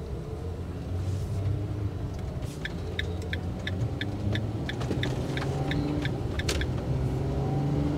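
Camper van driving, heard from inside the cab: a steady low engine and road rumble. From about two and a half seconds in, the turn signal ticks about three times a second for roughly four seconds.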